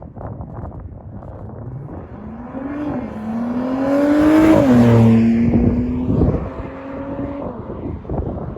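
Mercedes-AMG C43's twin-turbo V6 accelerating under throttle through its exhaust, the engine note climbing in pitch, dropping sharply about halfway through, then holding steady and fading near the end.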